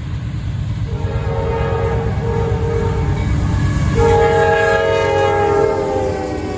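Passing train's multi-chime air horn sounding three blasts, two shorter ones and then a long, louder one that sags slightly in pitch near the end, over the steady rumble of the train.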